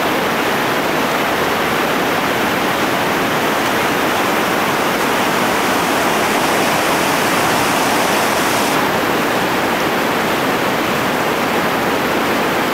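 Loud, steady rush of a big whitewater rapid, water pouring over and between boulders. About nine seconds in, the highest part of the hiss dulls a little.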